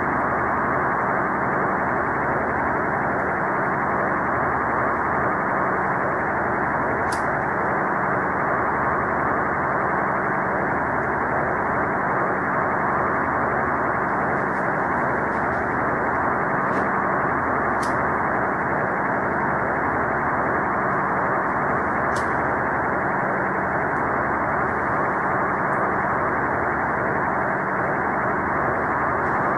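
Steady static hiss like an off-station radio, dull with no treble, with a faint low hum under it and a few faint clicks scattered through.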